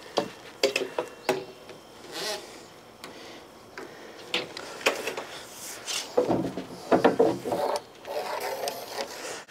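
Lumber boards knocking and scraping against each other as a board is laid across the tabletop boards and shifted into position. There are several sharp knocks in the first few seconds, and a louder cluster of knocking and scraping a little past the middle.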